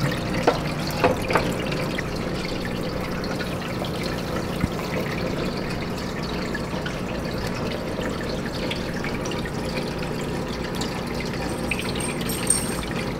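Aquarium filter water trickling and bubbling steadily into the tank, over a steady low hum. A few light clicks sound in the first second and a half.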